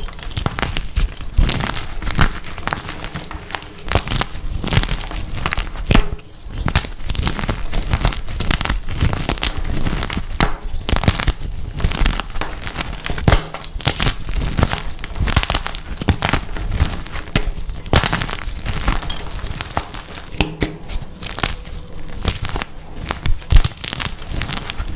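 Blocks of dyed gym chalk crushed and crumbled, a dense run of crunching and crackling, with a brief pause about six seconds in.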